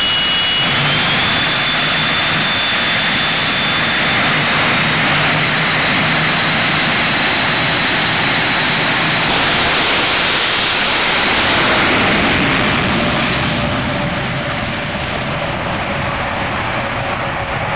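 Jet engine of the jet-powered 1957 Chevrolet semi truck running, a loud, steady roar with a high turbine whine that rises slightly at the start. It swells to its loudest about twelve seconds in, then falls off a little as the truck runs away down the strip.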